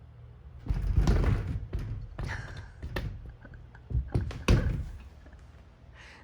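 A series of dull thumps and knocks at irregular intervals, the loudest cluster about a second in and another pair near four and a half seconds.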